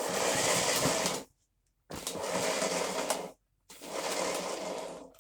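Three strokes of rubbing, sliding noise, each just over a second long with short pauses between: the power cable of a Henry Pets vacuum cleaner being pulled out by hand, before it is plugged in.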